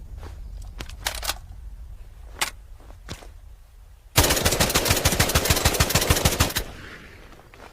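JM-3 assault rifle sound effect: a few separate sharp clicks or single reports, then a sustained burst of rapid automatic fire lasting about two and a half seconds.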